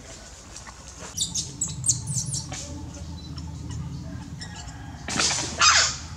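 Macaques squealing: a quick run of short, high squeaks about a second in, then a loud squeal that falls in pitch near the end.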